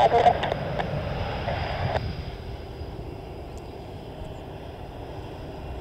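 Twin RB199 turbofan engines of a Tornado GR4 running as the jet rolls out along the runway after landing: a steady low rumble that slowly fades.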